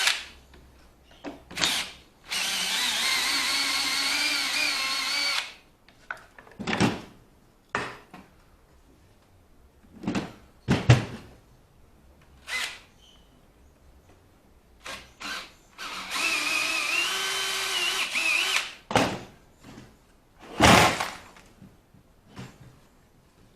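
Hand-held power tool running in two bursts of about three seconds each, its motor whine wavering slightly in pitch, with scattered knocks and clunks of wood and tools between the bursts.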